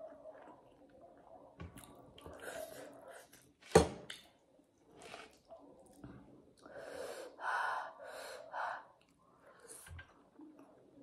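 Close-up eating sounds: chewing and soft mouth noises, a sharp click a little under four seconds in, then a quick run of four or five breathy gasps as air is sucked in through the mouth, the reaction to a spicy burn.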